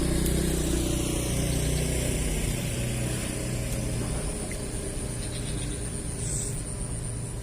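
A motor vehicle's engine running nearby, loud at first and fading away over the first two or three seconds, leaving a steady background hum with a thin high whine.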